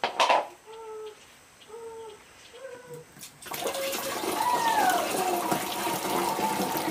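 Water poured from a bucket into a plastic backpack sprayer tank through its mesh strainer, a steady splashing that starts about three and a half seconds in and is the loudest sound. Before it, a single knock, then a few fainter short animal calls about a second apart.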